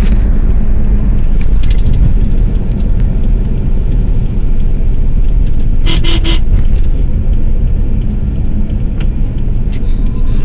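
Road noise inside a car cruising on a highway: a loud, steady low rumble of tyres, engine and wind. A brief horn toot sounds about six seconds in.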